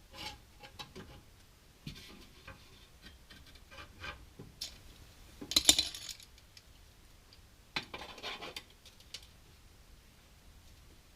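Irregular metallic clinks, clatters and scrapes of a steel sheet-metal top hat section being handled and trial-fitted under a VW bus. The loudest clatter comes about halfway through, with another cluster a little later.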